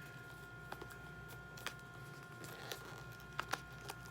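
A few faint, scattered taps and clicks of an album's packaging being handled, over a faint steady high whine.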